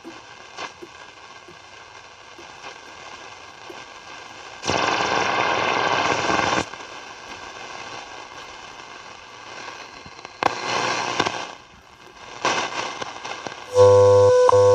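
Shortwave static and crackle from a Zenith Trans-Oceanic Royal 7000 radio as it is tuned across the band, with three loud rushes of hiss. Near the end the WWV time station comes in: a steady tone with a tick about once a second.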